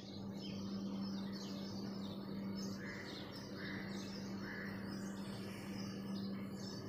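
Outdoor ambience of small birds chirping, many short calls, over a steady low hum.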